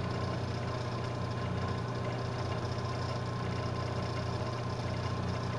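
Milling machine running steadily with a wiggler edge finder spinning in its spindle: an even motor hum with a faint steady whine above it.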